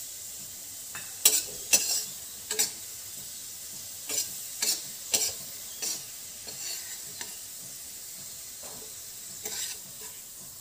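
Raisins sizzling in ghee in a steel kadhai while a perforated steel skimmer scrapes and clinks against the pan, stirring and scooping them out. A steady sizzle runs under several sharp scrapes, most of them in the first six seconds and one more cluster near the end.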